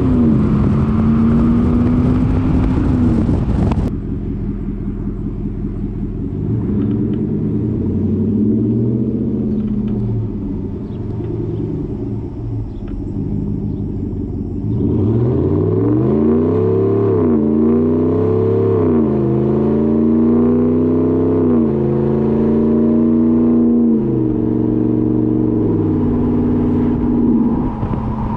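Ram 1500's 5.7 Hemi V8 through a Borla S-Type cat-back exhaust. It runs at a steady note, then cuts abruptly about four seconds in to the truck driving at a quieter cruise. About halfway through it grows louder, the note rising and dropping repeatedly as the truck pulls through the gears.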